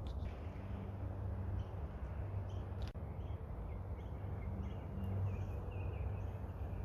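Faint short bird chirps, several in a row in the second half, over a steady low outdoor rumble.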